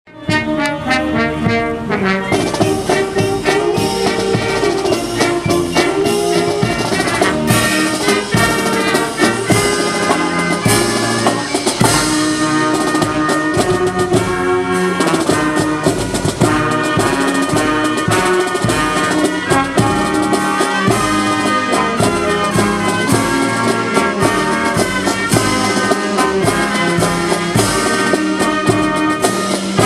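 Recorded music led by brass instruments, trumpets and trombones, over drums, playing steadily throughout.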